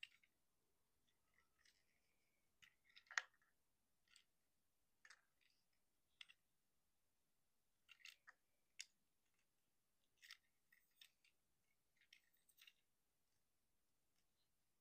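Faint, scattered clicks and snaps of plastic parts as a Transformers Legacy United Sunstreaker action figure is transformed by hand from car to robot. The sharpest click comes about three seconds in.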